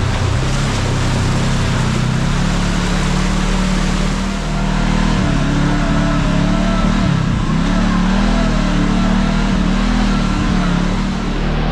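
Kawasaki KRX side-by-side's engine running on the trail, its pitch rising and falling with the throttle, with a dip about four and a half seconds in, over a steady rush of wind and tyre noise.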